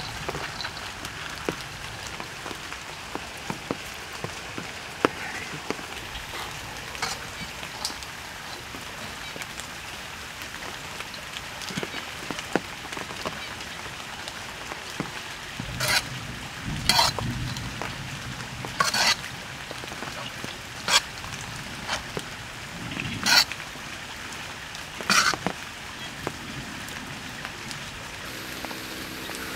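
Food frying with a steady sizzle in a steel wok over a wood fire, with small clicks as it is stirred. From about halfway, a metal ladle knocks and scrapes against the wok about six times, one stroke every couple of seconds.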